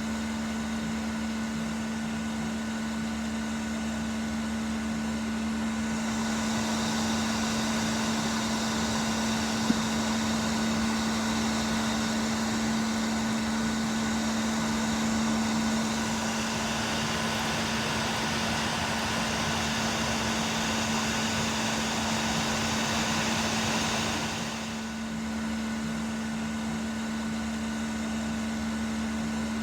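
Blower motor running steadily: a constant hum under an even rush of air. The airy rush grows louder about six seconds in and eases back near the end. There is one brief click about ten seconds in.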